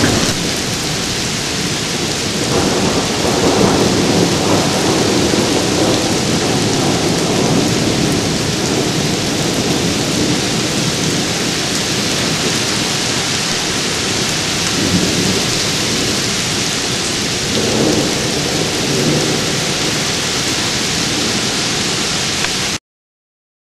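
Heavy downpour, a steady hiss of rain falling on grass and pavement, with rolling thunder swelling low a few seconds in and again in the last third. The sound cuts off suddenly near the end.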